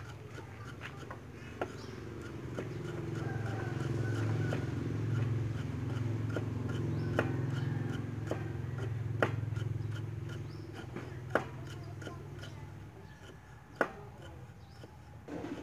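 Cleaver knocking on a wooden chopping board as garlic cloves are sliced: single sharp knocks at irregular intervals of one to two seconds. Under them a low droning hum swells up, holds through the middle and fades away before the end.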